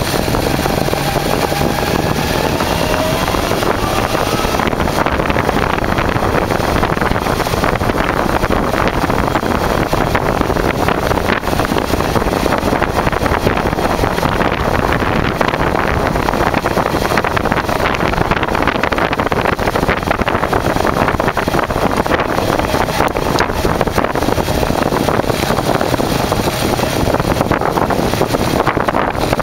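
Kawasaki Zephyr 550's air-cooled inline-four engine running on the move, rising in pitch as it accelerates over the first few seconds, with wind rushing over the microphone.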